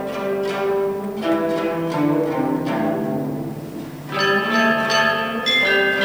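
Traditional Chinese ensemble music led by plucked long zither notes, each note ringing and decaying. About four seconds in, the music gets louder and brighter, with long-ringing high notes joining.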